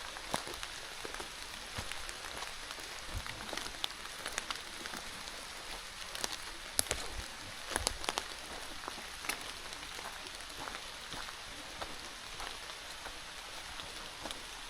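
Steady rain falling, with many close, sharp drop ticks, a denser run of them about eight seconds in, and a couple of dull low knocks.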